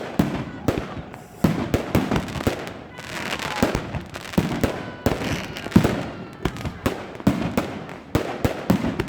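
Fireworks display: many sharp bangs at an irregular, rapid pace, several a second, mixed with crackling bursts.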